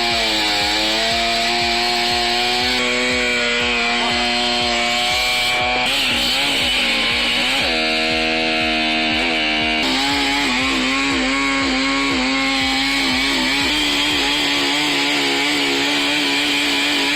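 Chainsaw running at high revs, its pitch dipping briefly and recovering several times as it takes load, then settling slightly higher in the second half.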